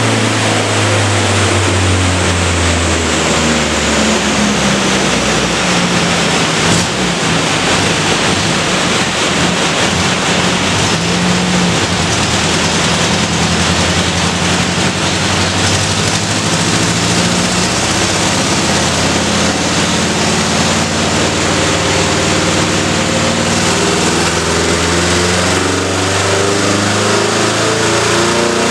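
1977 Datsun 620 ute's four-cylinder engine running hard on a chassis dyno. Its pitch climbs through the middle stretch and drops back lower toward the end, over a steady rushing noise.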